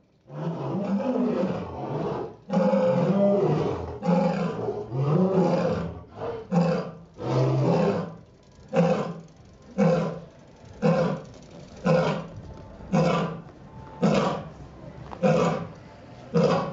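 Lion roaring: a few long, deep drawn-out roars, then a run of short grunting roars about one a second.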